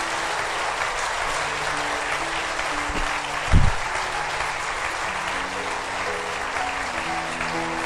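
Audience applauding steadily, with soft, slow music notes underneath. A brief, low thump about three and a half seconds in is the loudest moment.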